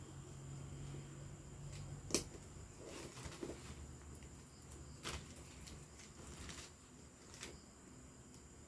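A few sharp clicks and knocks from handling a leather bag, the loudest about two seconds in, over a low steady hum.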